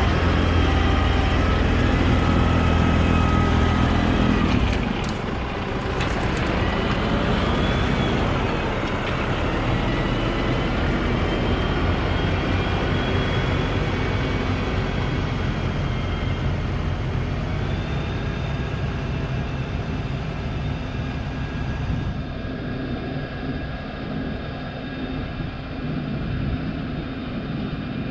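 Small tractor's engine running steadily while driving its PTO-powered snowblower, with a steady high whine over it. The engine is loudest at first and drops somewhat about four and a half seconds in.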